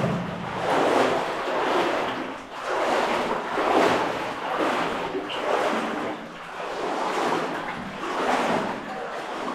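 Splashing water in a shallow cave stream, in swells about once a second, like the strides of someone wading through it.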